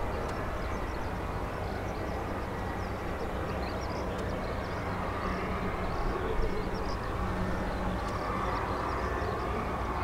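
Distant Boeing 737-800 jet with its twin CFM56 turbofans running at the runway threshold, a steady rumbling hiss that swells slightly near the end as the engines build toward takeoff power.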